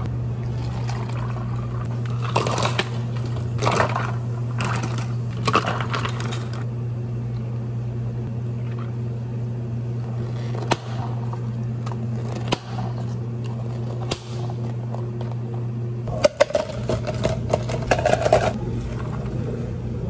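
Iced drinks being made in clear plastic cups: water poured over ice with the ice crackling, then espresso poured in from a small steel pitcher, with single clicks and a burst of clatter near the end. A steady low hum runs underneath.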